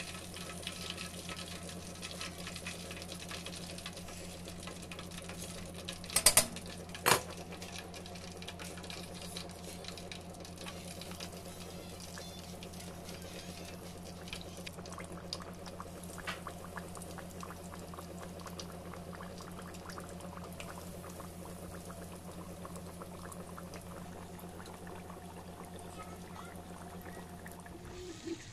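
Fish deep-frying in a pot of hot oil: a steady bubbling, crackling sizzle over a steady low hum, with two sharp clicks about six and seven seconds in.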